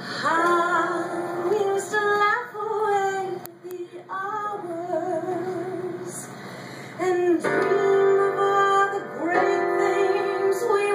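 A woman singing live into a microphone over keyboard accompaniment, holding long notes with a short break a few seconds in. The accompaniment fills out with fuller chords in the second half.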